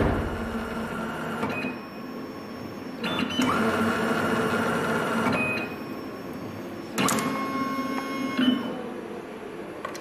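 Benchtop coaxial cable stripping machine running its stripping cycle three times. Each run is a motorised whirr with a steady whine, the middle one the longest at about two and a half seconds, and the last ends with a sharp click.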